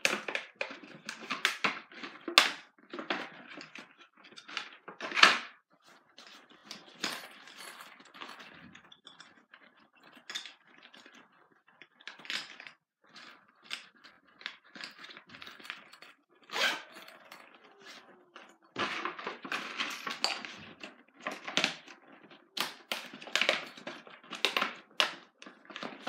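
Small school supplies being handled: plastic packaging crinkling and small items clicking and tapping against each other in many short, irregular sounds.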